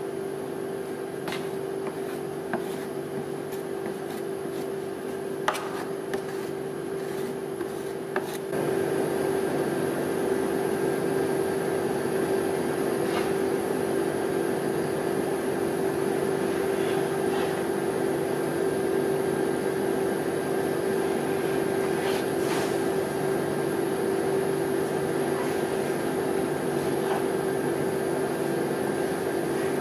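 Steady hum of a rolled-ice-cream cold-plate machine's refrigeration unit, growing louder about eight seconds in. Now and then a light click or scrape of a steel knife and spatula on the frozen plate.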